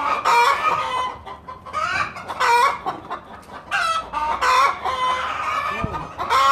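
Chickens clucking over and over, loud short calls every half second or so, with a longer drawn-out call about four seconds in.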